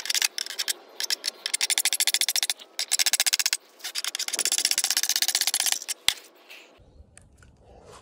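Hand metal file rasping across the steel teeth of a clamped saw blade in quick, repeated strokes with brief pauses, sharpening the teeth. The filing stops about six seconds in.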